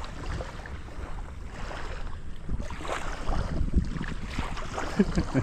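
Wind buffeting the microphone over lapping water, with a low rumble.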